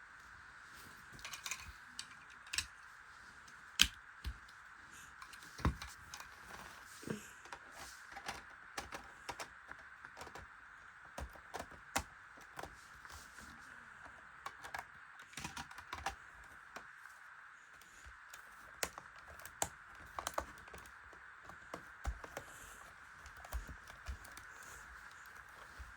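LEGO plastic pieces being handled and snapped together: irregular sharp clicks and taps over a steady faint hum.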